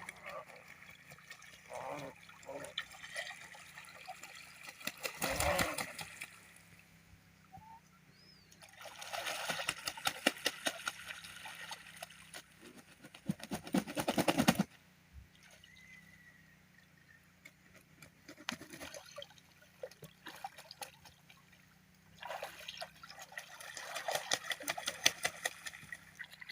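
Geese bathing in water, splashing hard in bursts of several seconds, with a few faint short calls between the bursts.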